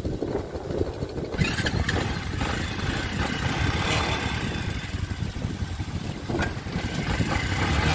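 ATV quad bike engine running as the bike creeps forward at low speed, a steady low rumble.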